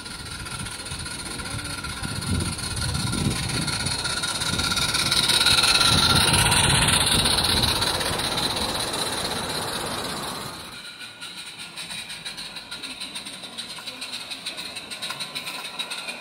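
Live-steam 16mm-scale model of the W&L Countess locomotive hauling a goods train: hissing exhaust steam and small wagon wheels rattling over the rails. The sound grows loudest as the train passes close, about six seconds in, then fades. After a sudden cut near eleven seconds, quieter, rapid, evenly spaced clicking follows.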